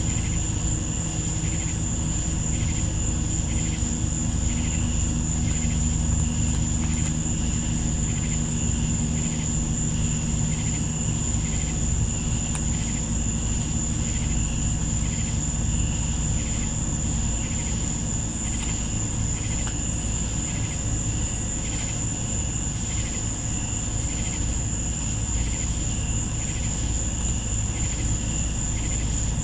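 Night insect chorus: a steady high-pitched trill and a rhythmic pulsing chirp about one and a half times a second, over a low steady hum.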